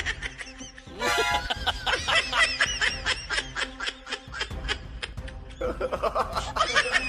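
Laughter in rapid, repeated short bursts, in two long runs with a brief break in between, over background music.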